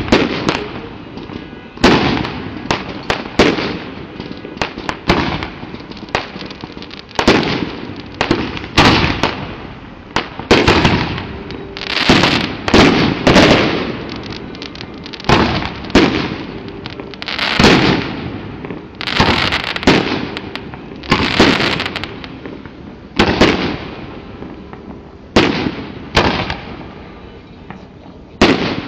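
Aerial fireworks shells bursting one after another, a loud bang every second or two, each trailing off in an echoing rumble.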